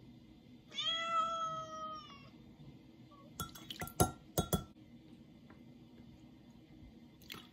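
A single drawn-out high-pitched cry early on, then a metal measuring spoon clinking against a glass measuring cup in a quick run of six or so sharp clinks about halfway through, while soy sauce is measured by the tablespoon.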